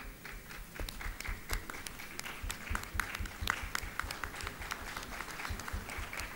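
Light, scattered applause from an audience, individual hand claps standing out.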